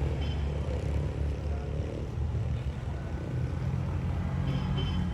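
A car driving, with a steady low engine and road rumble. A few faint, short high chirps come near the start and again near the end.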